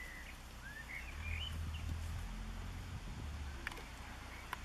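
Small birds chirping: a handful of short chirps in the first couple of seconds, over a low steady rumble. Two faint clicks near the end.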